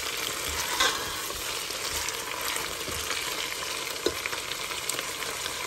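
Mutton and onions sizzling in hot oil in an electric pressure cooker's pot on sauté mode, stirred with a spatula. There is a steady frying hiss, with a few clicks and scrapes of the spatula against the pot, most clearly about a second in and again about four seconds in.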